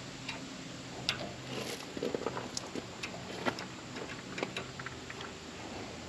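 Irregular light clicks and taps, about a dozen of them unevenly spaced, from hands and tools working at a Wood-Mizer LT15 sawmill's band blade and blade guide while the blade is being aligned.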